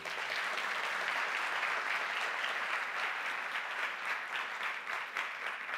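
Audience applauding, many hands clapping at a steady level that thins out near the end.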